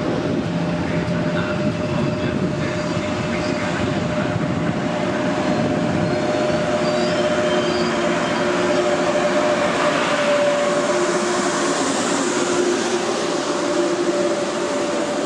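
Frecciarossa high-speed electric train running past along the platform: a steady rumble of wheels on rail with a steady whine held over it. Its rear end goes by near the end.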